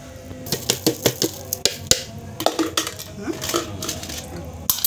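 Irregular sharp clinks and taps of a spoon and dishes against a plastic blender jar as ingredients for peanut sambal are spooned in, with a stronger knock near the end.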